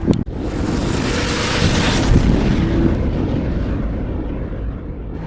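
Aircraft passing low overhead: a rushing engine noise that swells to its loudest about two seconds in and then slowly fades, with a high whine falling slightly in pitch as it goes by.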